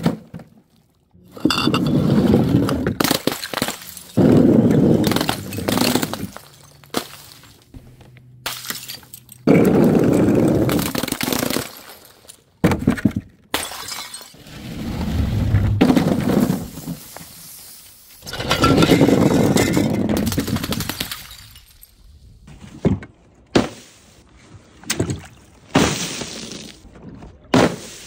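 A run of separate breaking and crashing impacts, each spreading into a crunching noise lasting a second or two, from filled bottles and balloons dropped and burst on a nail board. In the last few seconds the impacts come shorter and sharper, in quick succession.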